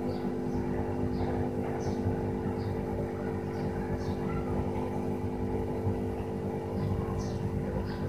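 Hot-air heat gun blowing steadily, a constant hum over rushing air, as it reflows the flux-pasted solder joints of a phone's SIM card socket. Faint short high chirps recur about once a second.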